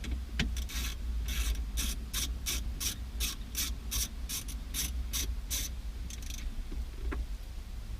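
Quarter-inch ratchet clicking as it loosens a 7 mm bolt, a steady run of strokes about three a second for some five seconds before it stops, followed by one lone click.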